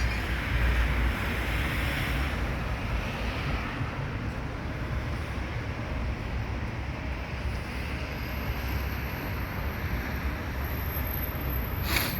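Steady street traffic noise with a low rumble of wind on the microphone, and one sharp click near the end.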